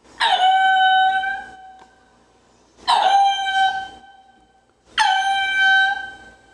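Ring-tailed lemur calling: three long calls about two seconds apart. Each drops sharply in pitch at the onset and then holds one steady note before fading.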